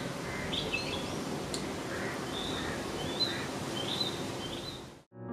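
Small birds chirping in short, repeated calls over a steady background hiss of ambience. The ambience cuts off suddenly near the end as a piano begins.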